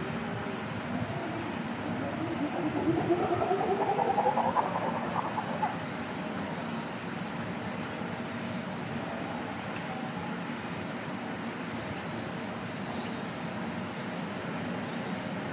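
A chimpanzee call rising steadily in pitch for about three seconds, a few seconds in, over a steady background hum.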